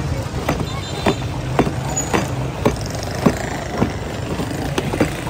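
Plastic paddle churning crushed-ice mango milkshake in a large steel pot, knocking about twice a second, over a steady rumble of street traffic.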